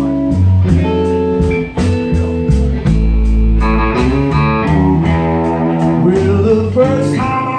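Live blues band playing an instrumental passage between vocal lines: electric guitar over upright bass and drums.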